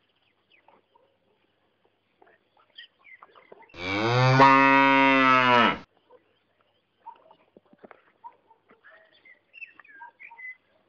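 A single long, low animal call lasting about two seconds, starting about four seconds in, with a slight rise and fall in pitch; otherwise only faint small rustles.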